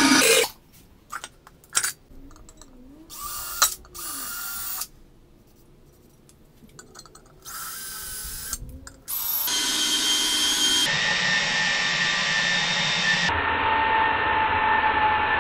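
Cordless drill boring into a cast-iron brake drum. In the first half the motor runs in short start-stop bursts with quiet gaps; from about nine and a half seconds in it runs steadily with a whine.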